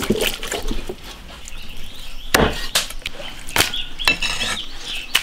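Wet squelching of a hand rubbing marinade into a raw fish head, then a few sharp knocks, about four in three seconds.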